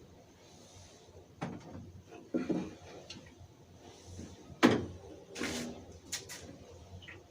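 Several separate knocks and clunks from containers being handled while the dehumidifier's collected water is measured out. The loudest knock comes about four and a half seconds in.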